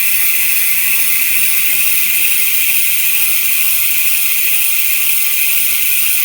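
Speedone Soldier six-pawl bicycle rear hub freewheeling as the wheel spins on: its pawls click over the ratchet ring in a steady, even, loud buzz.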